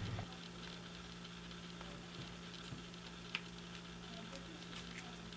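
Faint, quiet handling: a few soft clicks and ticks as a black acetal face is threaded onto an aluminum hammer head by hand, one sharper click a little over three seconds in, over a steady low hum.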